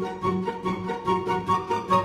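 Background music with a quick, even beat and a bright melody line.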